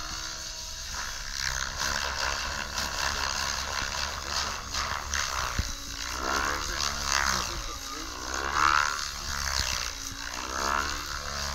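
Radio-controlled 3D helicopter flying aerobatics, its rotor and motor noise swelling and falling in pitch as the manoeuvres load the blades, loudest about three-quarters of the way through. A steady low wind rumble on the microphone sits underneath.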